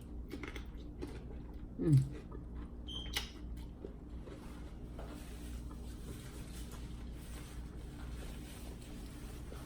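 Soft eating sounds: small mouth clicks and chewing, close to the microphone, with a short hummed 'mm' falling in pitch about two seconds in, over a low steady hum.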